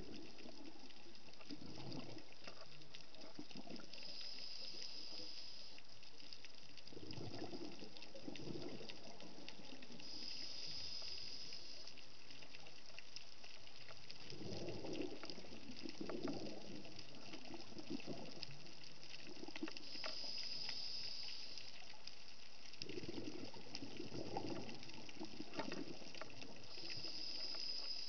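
Scuba diver breathing through a regulator underwater: a short high hiss on each inhale, then a longer rumble of exhaled bubbles, repeating about four times.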